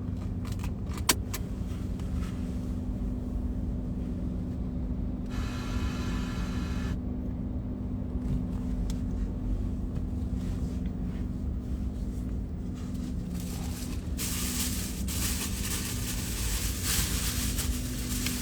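A car's steady running hum heard inside the cabin, with a few clicks about a second in. A short electronic tone sounds about five seconds in, and a broad hiss comes up near the end.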